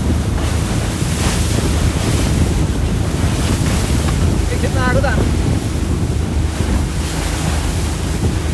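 Speedboat under way: heavy wind buffeting the microphone over a steady low drone and rushing water.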